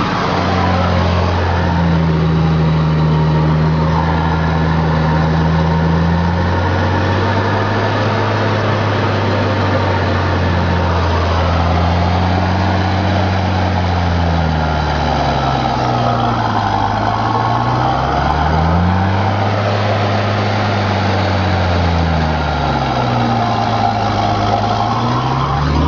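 John Deere 7700 tractor's six-cylinder diesel engine running under load while driving a rotary power harrow, heard from inside the cab. The engine note is steady at first, then in the second half dips and recovers several times, a few seconds apart.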